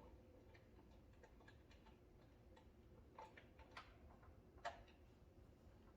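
Near silence broken by faint, irregular small clicks and taps, a few sharper ones a little past halfway, from handling a small Allen bolt and hex wrench at the mini bike's engine.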